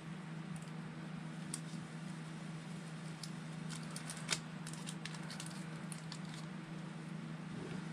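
Light clicks and crinkles of small parts and a small plastic zip bag being handled, with one sharper click about four seconds in, over a steady low hum.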